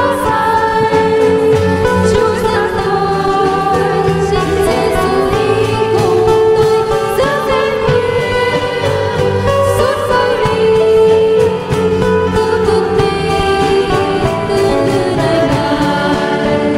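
Voices singing the chorus of a gospel hymn with instrumental accompaniment.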